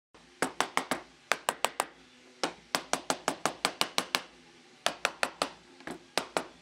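Rapid runs of sharp knocks on a box-jointed wooden box, about five a second in groups of four or more strikes with short pauses between.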